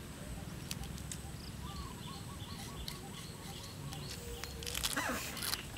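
Outdoor ambience: birds calling, including a short run of repeated chirping notes a couple of seconds in, over a steady low wind rumble on the microphone, with faint clicks from hands picking at food. A brief louder sound with a falling sweep comes about five seconds in.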